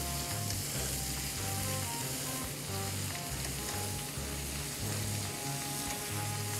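Cod loins sizzling steadily as they pan-fry in clarified butter in a stainless steel frying pan, with background music and a pulsing bass line underneath.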